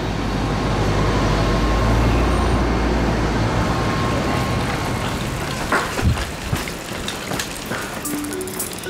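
Town street traffic: a heavy vehicle's engine runs loud and low for the first few seconds, then fades, leaving lighter traffic noise with a few knocks. Music notes begin near the end.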